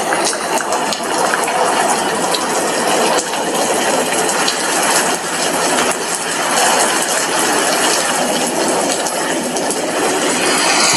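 Steady rain falling on a glass window: a dense hiss with many small ticks of drops striking the pane.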